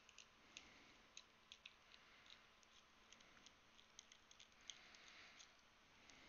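Faint, irregular small clicks of a precision screwdriver turning a screw into a small single-key keyboard case.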